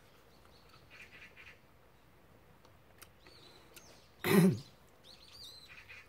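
Small birds chirping faintly now and then over a quiet outdoor background. About four seconds in, a single loud, short quack-like call from a farmyard fowl.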